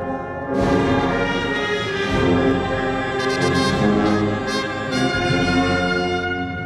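Brass-led music playing slow, held chords, with trumpets and trombones prominent.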